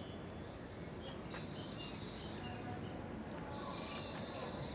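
Insects buzzing steadily on one high note, stronger from about three seconds in, over a faint outdoor hiss with a distant crowd murmur; a brief high chirp sounds near the end.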